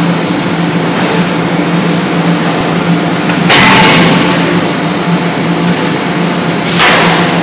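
80 kJ hydraulic forging hammer running, its hydraulic drive giving a steady loud hum. A louder, noisy burst comes with each stroke, twice, about three seconds apart.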